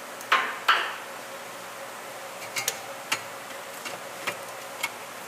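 Skunk2 exhaust pipe being handled into place under the car: two sharp knocks about a third of a second apart, the second ringing briefly, then a few lighter scattered clicks.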